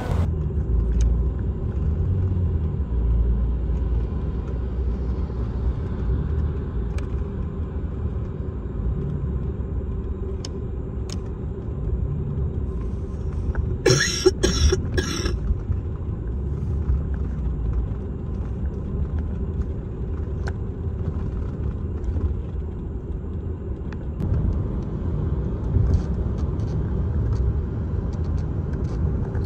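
Car cabin noise from a passenger seat: a steady low rumble of the car driving on the road. About halfway through there is a short, bright high-pitched sound lasting about a second, and a few faint clicks near the end.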